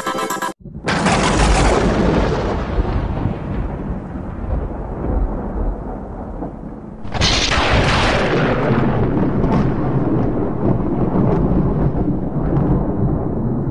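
Music cuts off abruptly, then two loud booming hits follow, one about a second in and another about seven seconds in, each trailing off in a long rumble.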